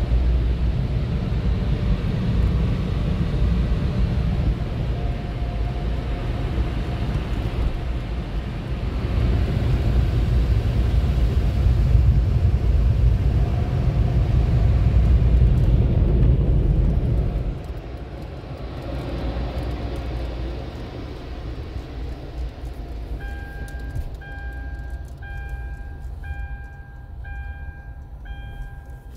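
A loud, steady low rumble and rush heard from inside a car, which drops away sharply about 17 seconds in. Near the end, a car's two-tone dashboard warning chime repeats about once a second.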